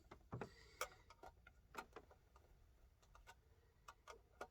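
Near silence broken by faint, light clicks and ticks at irregular intervals, about a dozen in all.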